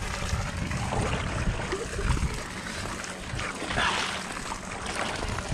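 Pool water sloshing and splashing around a wading elephant, with a brief louder splash about four seconds in.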